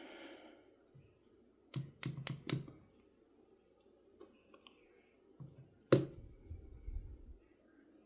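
Small hard clicks from the folding knife's freed pivot and parts being handled: four quick clicks about two seconds in, then one louder click a little before the end, followed by some low handling noise.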